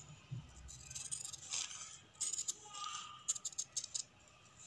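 Scissors snipping through a folded paper pattern along a drawn neckline curve: a few short, crisp snips, coming closer together in the second half.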